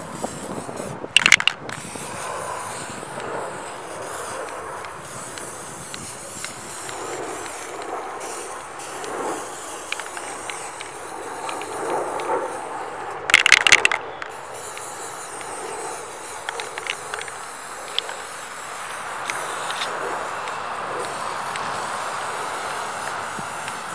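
Aerosol spray paint can hissing as paint is sprayed, over steady outdoor noise. Two brief, loud bursts of noise stand out, about a second in and about thirteen seconds in.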